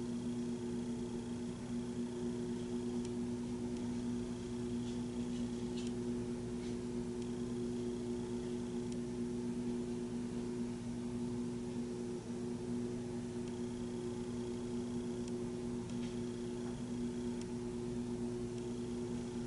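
Steady droning hum of a truck engine held at a raised idle to drive the hydraulic knuckle-boom crane, with a few faint clicks and brief thin high whines over it, heard through a window.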